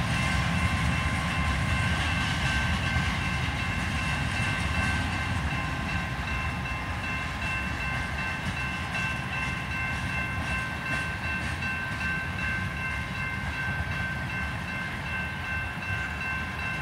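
A long CN train rolling steadily through the grade crossing, its cars rumbling past, with the crossing's warning bell ringing steadily over it, heard from inside a car.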